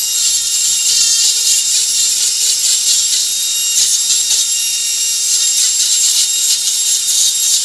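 Dremel 4000 rotary tool driving a carving burr through its flex shaft and grinding into wood: a steady high-pitched whine over the rasping hiss of wood being ground away.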